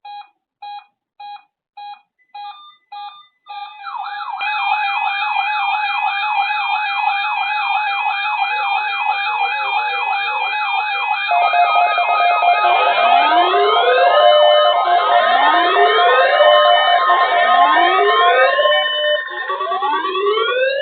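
Several NOAA weather radios sounding their alert alarms at once, set off by a Required Weekly Test broadcast. It opens with a row of short beeps about twice a second. From about four seconds in, many alarms pile up into rapid pulsing beeps and steady tones, joined later by siren-like rising sweeps about every two seconds. The alarms cut off sharply at the end.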